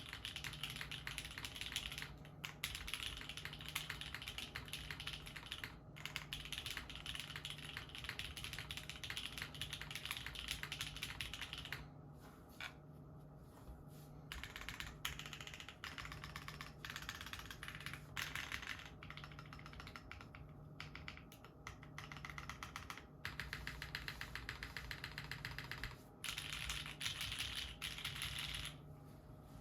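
Typing on a custom mechanical keyboard: a Jalter top-mount board with an aluminium plate, Nolives switches lubed with 205g0, TX stabilizers and GMK Maestro keycaps. The typing is dense and fast at first, then about twelve seconds in it breaks into shorter runs of key presses with pauses between them.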